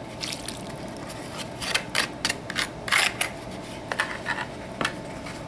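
A utensil scraping and clicking against a small ceramic bowl as melted butter is scraped out of it: a run of short, irregular scrapes and taps.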